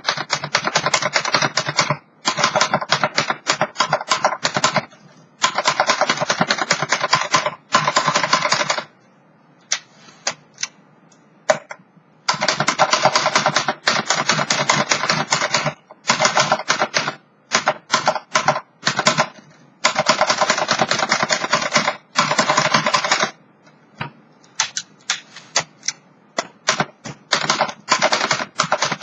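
1940 Remington Quiet Model 1 manual typewriter being typed on: fast runs of key strikes lasting a few seconds each, broken by short pauses, with a quieter stretch of only a few scattered clicks about nine to twelve seconds in.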